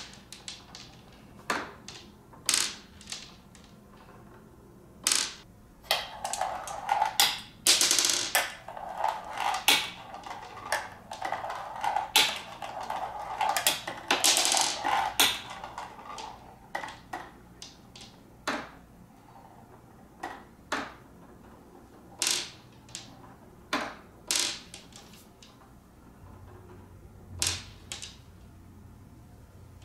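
Glass marbles rolling down the plastic chutes of a marble run submerged in a water-filled glass tank, with irregular clicks and clacks as they drop from ramp to ramp and land on the pile. There is a busier stretch of rolling and clatter through the middle.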